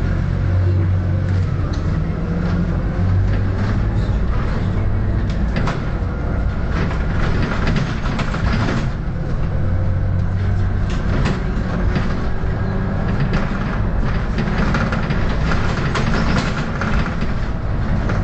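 Volvo B7RLE single-decker bus under way, heard from inside the cabin at the front: the six-cylinder diesel's low drone shifts in pitch a few times as the bus changes speed. Scattered clicks and rattles come from the bodywork.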